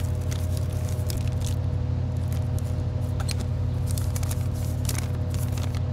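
A steady low engine hum, with scattered light clicks and rustles of handling over it.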